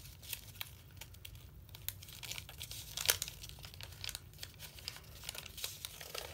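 Square of origami paper being folded and creased by hand: irregular crinkling and rustling, with a sharper crackle about three seconds in.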